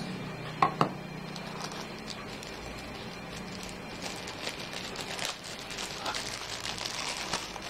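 Plastic wrapping crinkling and rustling as a small packed item is unwrapped by hand, densest in the second half. A couple of light knocks come about a second in.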